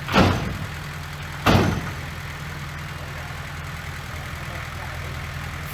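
A heavy diesel engine idling steadily, with two loud bangs about a second and a half apart near the start.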